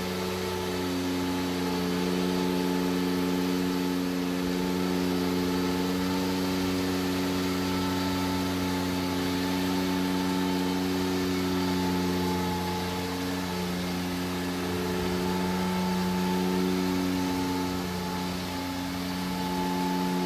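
Ride-on twin-rotor power trowel's engine running steadily as it finishes a fresh concrete slab, its pitch holding even with only slight dips.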